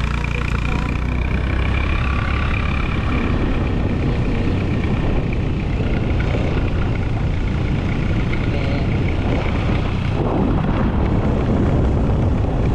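A vehicle driving along a road: steady engine, tyre and wind noise with no letting up.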